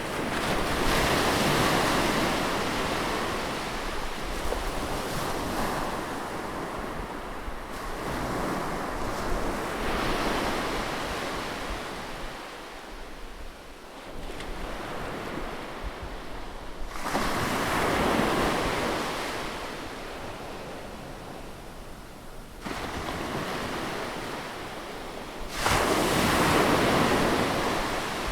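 Sea waves breaking and washing on the shore, the surf swelling to a loud rush about every eight seconds and ebbing between breakers, with some wind.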